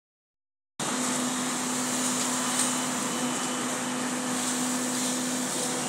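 Concrete mixer-pump machine running steadily while it pumps concrete up the pipeline to a roof slab: a constant mechanical drone with an even low hum, coming in abruptly about a second in.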